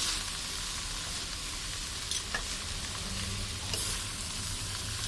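Spring roll filling of shredded cabbage, glass noodles and minced pork sizzling as it is stir-fried in a large wok, with a metal spatula scraping and clinking against the pan now and then.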